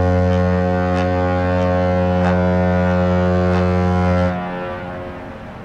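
Viking Grace cruise ferry's ship horn sounding one long, deep blast as a warning signal, lasting about four seconds before cutting off and leaving a fading echo.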